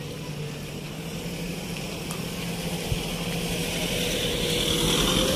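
Road-traffic noise: a steady motor-vehicle engine hum, with tyre noise swelling louder toward the end as a vehicle approaches.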